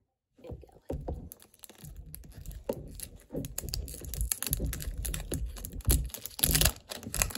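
Fingernails picking and peeling at the plastic wrap around a plastic toy capsule: irregular crinkling, scratching and clicking of nails on plastic as the wrap is worked loose.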